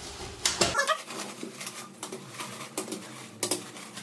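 Irregular crinkling of plastic packaging and light knocks of aluminium rods as the packed parts of a clothes rack are handled. A low background hum cuts off abruptly about a second in.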